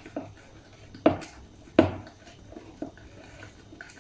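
A utensil stirring cake batter in a mixing bowl, knocking against the bowl's side four times at uneven intervals.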